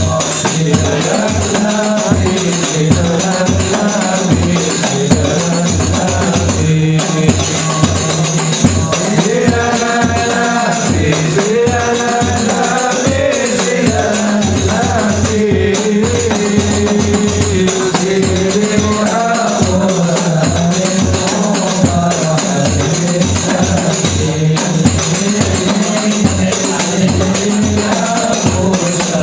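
Rebana ensemble playing: several hand frame drums and a large barrel bass drum beat a steady, fast rhythm under male voices singing shalawat into microphones.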